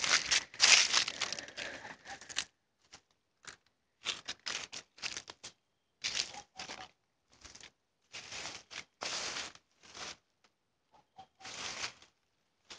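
Footsteps crunching and rustling through dry leaves and undergrowth. The steps come thick for the first two seconds or so, then as separate crunches with short quiet gaps between them.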